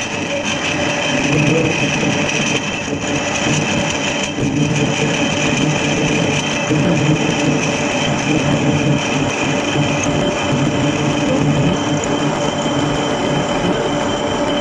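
Edgwick metal-turning lathe running under power with its tool cutting a steel bar: a steady mechanical hum and whine from the geared drive, with the hiss and chatter of the cut.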